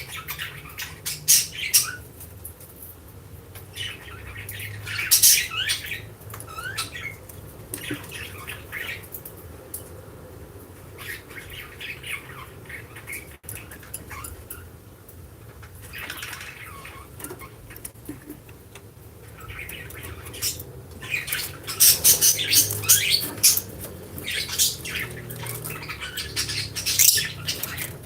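Lovebirds squawking and chirping in short, shrill bursts that come in flurries, busiest and loudest in the last third.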